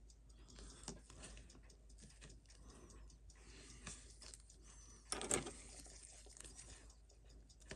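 Faint, scattered clicks and taps of small tools and watch parts being handled on a watchmaker's bench, with one louder click about five seconds in.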